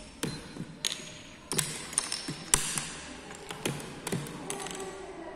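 Draughts pieces tapped down on the board and the buttons of a digital game clock pressed in quick play: an irregular series of sharp taps and clicks, the loudest about two and a half seconds in.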